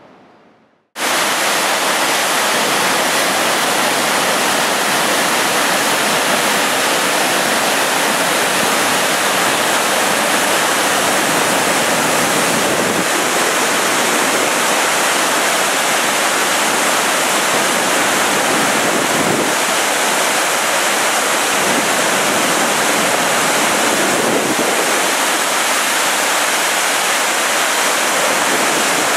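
Steady rushing roar of the Great Falls of the Passaic River, water pouring over the falls. It cuts in abruptly about a second in, after a moment of silence.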